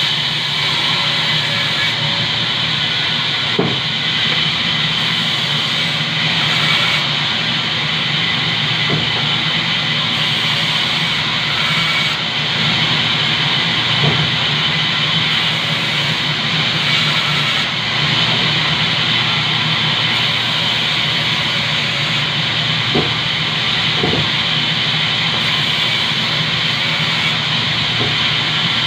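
Large industrial band saw running steadily with a loud hiss and hum as it cuts through a log section, with an occasional knock of wood against the table.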